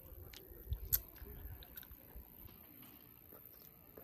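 A person chewing food close to the microphone, with small wet mouth clicks and a sharper click about a second in.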